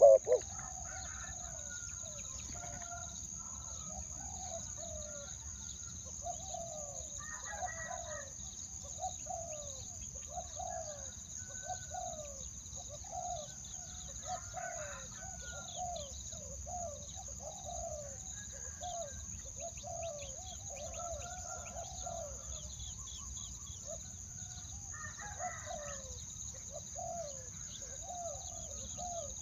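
Many short, falling bird calls repeating all through, with scattered higher chirps, over a steady high-pitched drone.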